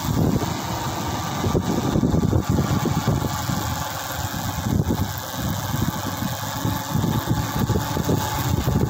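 Engine and road noise of a moving vehicle, an uneven low rumble.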